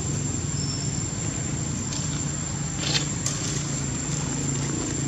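A motor engine running steadily with a low hum, and a few faint clicks about three seconds in.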